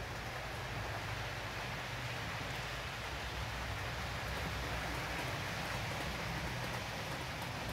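Model train running on the layout's track, out of sight: a steady rumbling hiss of wheels and motor that grows slightly louder about halfway through, with a few faint clicks.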